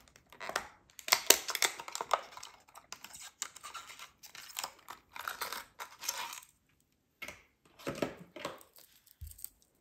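Hands handling a hardbait lure in its plastic packaging: a quick run of clicks and crinkling rustles for about six seconds, then a short pause and a few scattered clicks near the end.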